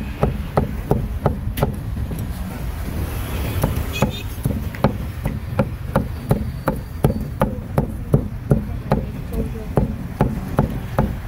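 A cleaver chopping grilled meat on a wooden block in a steady rhythm of sharp chops, about three a second, over a low rumble of street traffic.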